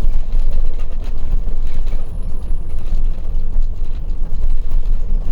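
Steady low rumble of road and engine noise from a moving vehicle, heard from inside as it drives a mountain road.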